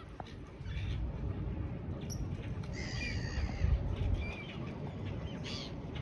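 Birds calling with a few short chirps and squawks over a steady low rumble.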